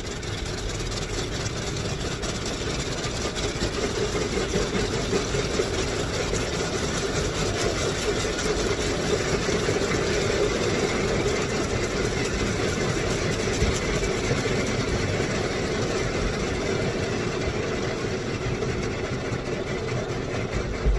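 Automatic car wash heard from inside the car's closed cabin: a steady, dense rush of water spraying against the body and windows, with the wash machinery humming under it.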